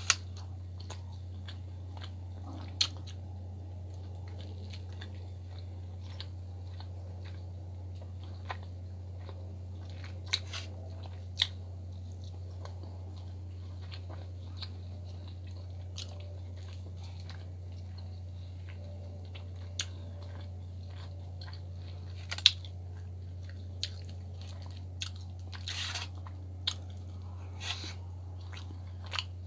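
Close-miked eating: chewing and biting of salmon and vegetables, with scattered sharp mouth clicks, the loudest about two-thirds of the way through. A steady low hum lies underneath throughout.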